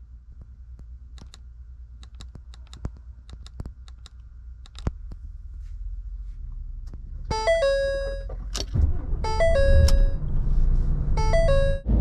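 An electronic chime sounds three times about two seconds apart, each a quick run of notes ending on a held tone. Beneath it is the low rumble of a vehicle engine, which grows louder from about seven seconds in. A few light clicks come first.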